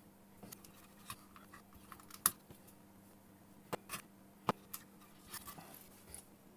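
Scattered light clicks and taps of small tools and parts being handled on a workbench, the sharpest about two seconds in.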